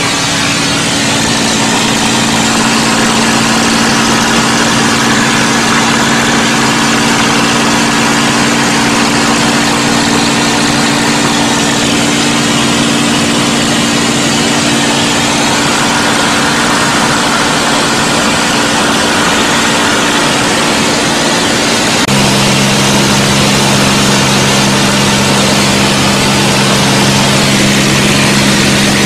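Mustang fighter's Merlin V12 engine running steadily in flight, heard from inside the cockpit with loud air rush over the canopy. About 22 seconds in, the engine note drops suddenly to a lower, steady pitch.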